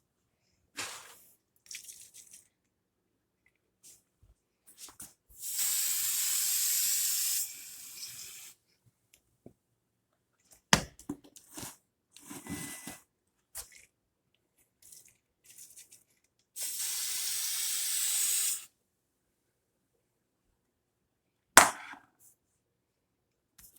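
Aerosol disinfectant spray hissing in two long bursts of about two seconds each, with short knocks and rustles of handling between them.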